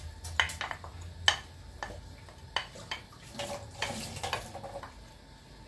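Kitchen utensil clinking and scraping against a container and saucepan as homemade applesauce is spooned into the pan: a run of sharp clinks, then a busier patch of scraping and clinking about three seconds in.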